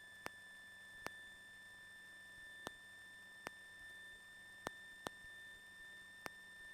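Near silence on an electronic audio feed: a faint steady high-pitched electrical tone with scattered faint clicks, and no engine or rotor sound.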